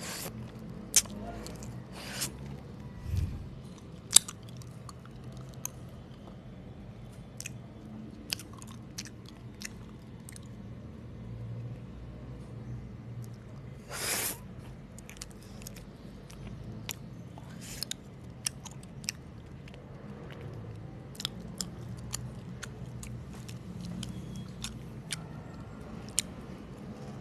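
Close-miked chewing and biting of homemade mochi ice cream: irregular wet clicks and smacks of the mouth, with a longer burst about halfway through, over a steady low hum.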